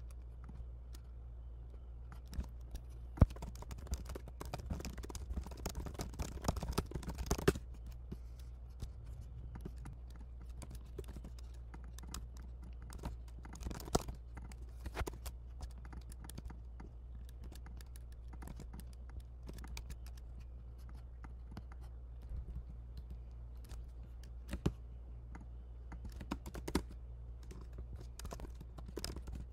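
Computer keyboard typing: a dense run of keystrokes about four seconds in, then short bursts and scattered single key clicks, over a steady low hum.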